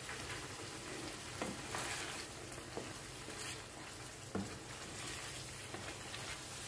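Chicken pieces frying down in thick masala in a non-stick pan, a steady sizzle, while a wooden spatula stirs them and knocks against the pan a few times.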